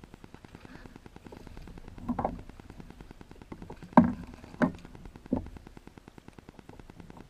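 Steady fast ticking buzz of wireless-microphone interference, with a few knocks over it: a short rustle about two seconds in, a sharp knock about four seconds in (the loudest sound), then two smaller knocks.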